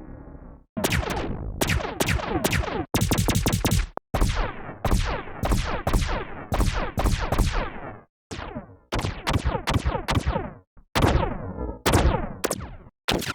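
Synthesized gunshot sound effects fired in succession: single sharp cracks about two to three a second, each with a decaying tail, with a fast rapid-fire burst about three seconds in.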